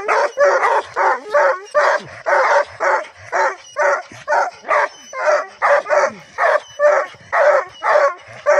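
Hunting dog barking in a steady, rapid series, about two or three barks a second, baying at an armadillo it has found.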